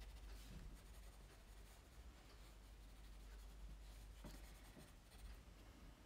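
Pencil shading on paper: faint, steady scratching of graphite strokes.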